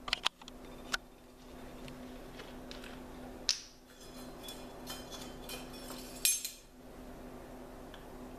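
Handling a glass bottle of vanilla extract and metal measuring spoons: a few sharp clicks, then a run of small ringing clinks in the middle and a louder clatter a little later, over a steady low hum.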